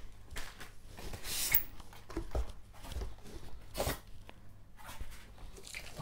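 Cardboard box and its white packing inserts being handled and lifted out: scattered rustles and light knocks, with one sharper knock about four seconds in.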